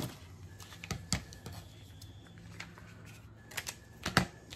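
Scattered light clicks and taps of plastic heat-transfer vinyl and its clear carrier sheet being handled and peeled on a cutting mat, with a sharper click about a second in and a couple more near the end.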